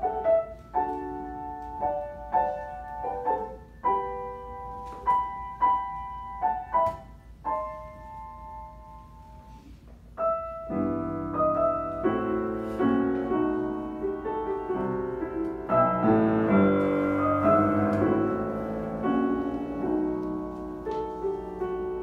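Grand piano played solo: short, separated chords in the middle and upper range, thinning to a quieter held passage, then about ten seconds in a louder, fuller passage with low bass notes.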